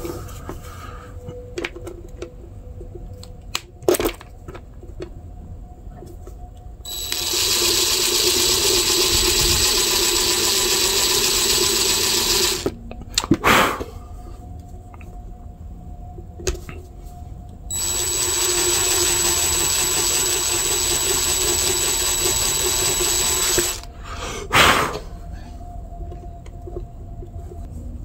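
Cordless drill running in two steady bursts of about six seconds each with a high whine, drilling small pin recesses into a wooden knife scale. A few sharp knocks fall before and between the runs.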